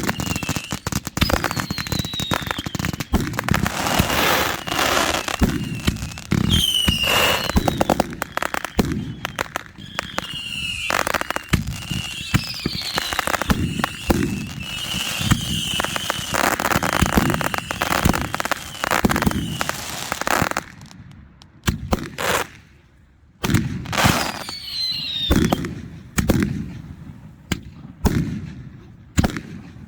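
Fireworks going off: a dense run of bangs and crackling with several whistling shrieks, some sliding down in pitch, then about twenty seconds in it thins out to separate bangs with short gaps between them.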